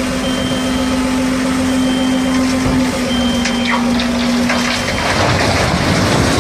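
Iveco tipper truck running its hydraulics to raise the dump body, a steady engine-and-pump whine, then from about five seconds in, large concrete slabs sliding off the tilted body and crashing down onto the dirt.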